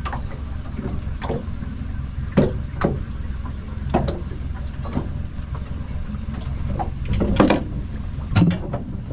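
Sportfishing boat on the water: a steady low rumble with irregular slaps and knocks every second or so, the loudest and longest one near the end.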